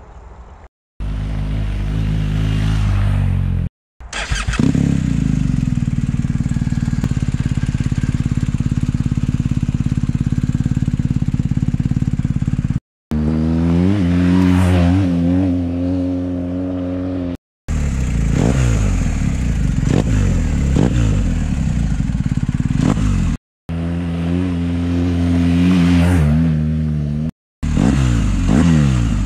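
BMW R 1250 GS's 1254 cc boxer twin through an Akrapovič exhaust with the dB killers removed, running and being revved: steady stretches alternate with throttle blips whose pitch rises and falls back. The sound comes in several short pieces, each ending in an abrupt cut.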